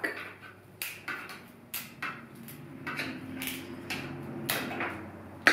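Pink-handled wire cutters snipping at an artificial flower's stem at the crook, a spot that is harder to cut: about five sharp clicks, roughly a second apart.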